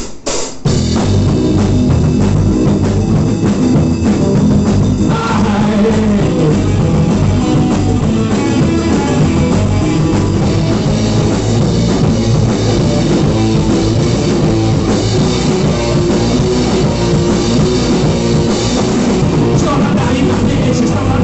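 Rock band playing live with drum kit, electric guitar and bass. A few sharp drum hits open a brief break, then the full band comes back in about half a second in and plays on steadily.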